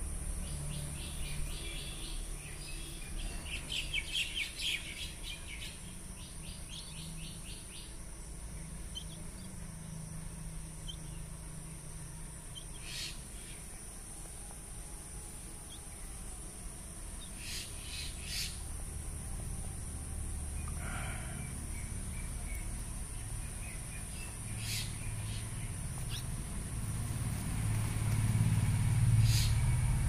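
Common myna chicks calling: a rapid run of harsh high notes for the first several seconds, loudest about four seconds in, then scattered short, sharp calls. A low rumble builds near the end.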